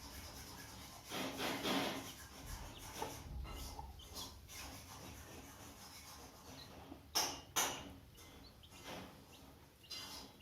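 Hen and chicks moving about, with rustling and scratching and two sharp taps about seven seconds in.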